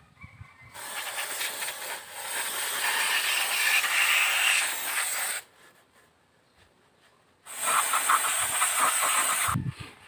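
Aerosol brake cleaner hissing from a spray can onto a front disc-brake caliper in two long bursts, the first about five seconds and the second about two seconds.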